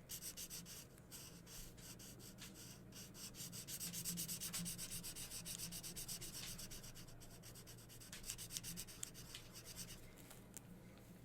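Felt-tip markers colouring on paper, rubbed back and forth in fast, scratchy strokes that are loudest about four seconds in.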